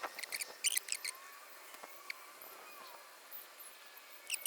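Old vinyl electrical tape being pulled off its roll, its degraded adhesive crackling and squeaking in sharp bursts in the first second and again near the end: the glue has come off onto the back of the tape.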